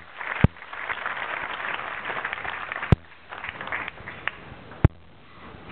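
Audience applauding, dying away with a few last claps about three to four seconds in. Three sharp loud clicks cut through it.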